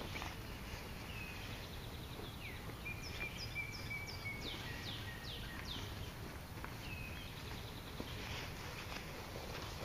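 Woodland songbirds singing, with several quick downslurred whistles and a held whistled note a few seconds in, over a low steady rumble of background noise. There are faint rustles and ticks from a hunter handling a fabric ground blind.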